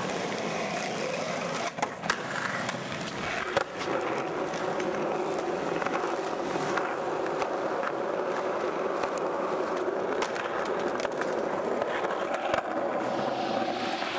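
Skateboard wheels rolling on pavement with a continuous rumble, with a few sharp clacks from the board about two and three and a half seconds in.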